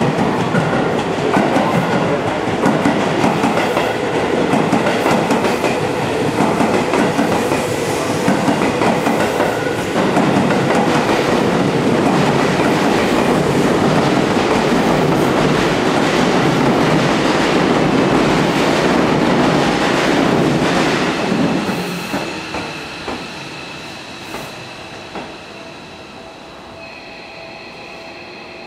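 Seibu 6000-series electric commuter train pulling into the station: loud wheel and running noise with scattered knocks. About three quarters of the way through it dies away as the train slows to a stop, leaving a few steady high whining tones.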